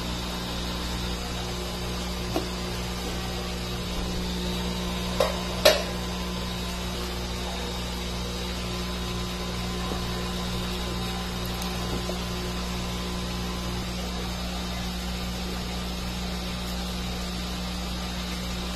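Steady low hum, broken by a few sharp knocks, the loudest a pair about five to six seconds in.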